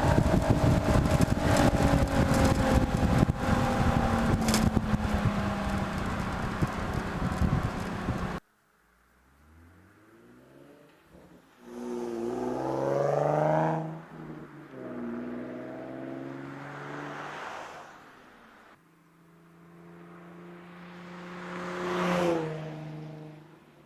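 VQ35 V6 through a Motordyne Shockwave exhaust with ART pipes. For the first eight seconds it runs loud with its pitch slowly falling, under heavy rushing noise. It then cuts off suddenly and comes back quieter as three separate revs that rise and fall, the last one climbing highest near the end.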